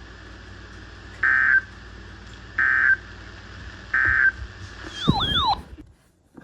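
Three Emergency Alert System end-of-message data bursts, short electronic squawks about a third of a second each, spaced a little over a second apart, over a faint steady hum. Near the end a brief warbling tone glides up and down and cuts off.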